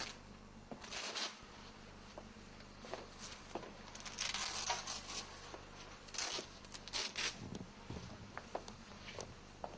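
Faint, scattered rustling and shuffling of people moving about, with a handful of short hissy brushes a second or more apart and a longer cluster about four to five seconds in.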